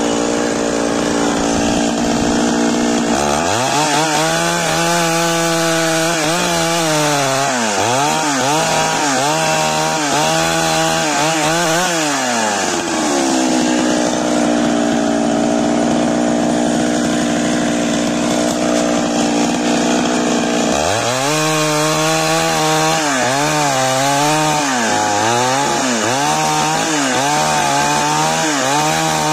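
Stihl two-stroke chainsaw idling, then throttled up and ripping lengthwise through a cedar log, its pitch dipping and recovering as the chain bites into the wood. About twelve seconds in it drops back to idle, and some eight seconds later it throttles up into another rip cut.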